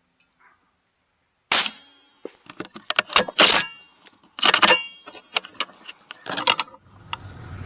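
Irregular loud knocks and rattles of gear being handled, then an ATV engine starts near the end and runs steadily.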